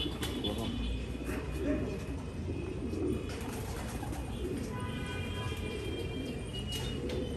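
Racing pigeons cooing together in their loft: a continuous low, wavering murmur of many birds.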